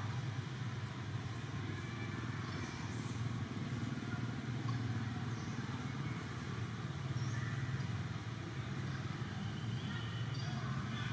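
A steady low mechanical hum, like an engine running, with faint short high chirps now and then.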